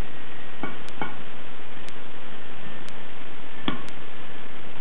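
Three light knocks of a wooden spoon against a ceramic bowl as a ground beef mixture is scraped out, over a steady hiss.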